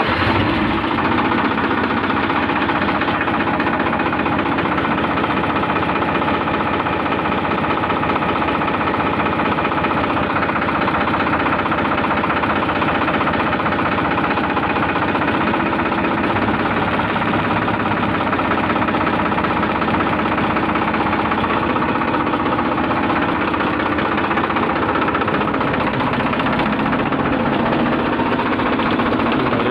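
Diesel tractor engine running steadily, just started.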